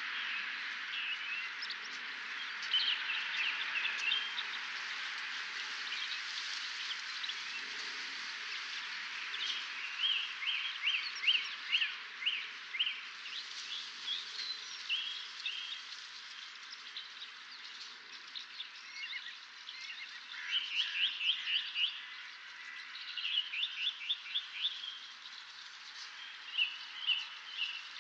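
Dawn chorus of several songbirds singing at once: overlapping chirps and fast runs of repeated notes over a steady hiss. The song phrases grow louder and more frequent in the second half.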